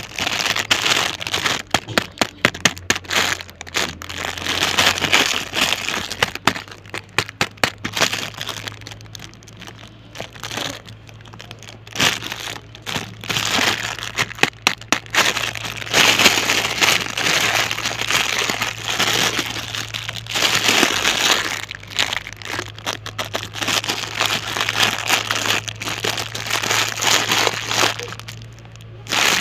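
Crinkling and crackling of a thin clear plastic packaging bag as hands squeeze and turn it over, in uneven bursts. The bag holds a toy hand-crank fan. A steady low hum runs underneath.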